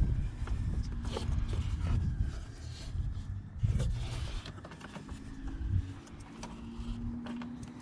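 Hands working a halogen headlight bulb and its connector into the back of a car headlight housing: scattered plastic clicks and rubbing over a low rumble.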